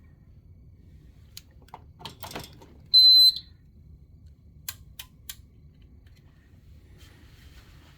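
Silent Knight SK-5208 fire alarm control panel's buzzer giving one short, loud, high-pitched beep, with a few light clicks before it and three quick clicks after it.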